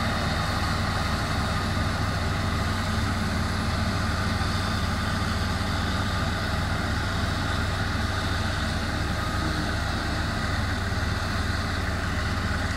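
Claas self-propelled forage harvester chopping maize for silage, its engine and cutting gear running steadily under load, with a tractor hauling the trailer alongside. The drone is deep and unbroken.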